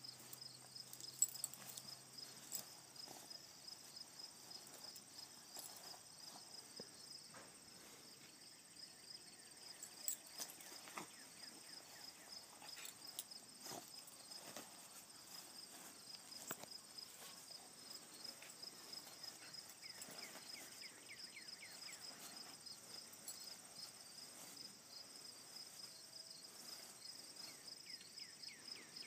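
Faint crickets chirping in an even, steady pulsing rhythm, with a few soft scattered taps and rustles.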